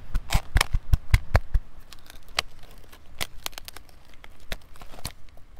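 Knife cracking through a spiny lobster's shell: a run of sharp, irregular cracks and crunches, densest and heaviest in the first second and a half, then sparser.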